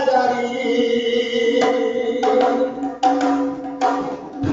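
A man singing a drawn-out folk melody into a microphone, holding long notes. Starting about one and a half seconds in, a two-headed barrel drum is struck in a handful of sharp strokes between the phrases.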